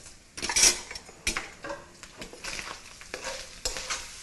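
Chopped bacon sizzling in hot fat in a wok while a metal spoon stirs and scrapes it, knocking against the pan a few times. The loudest scrape comes about half a second in.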